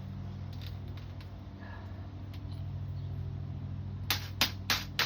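A hammer lightly tapping a metal screen spline into the screen frame's channel: four quick taps, about three a second, near the end, over a steady low hum.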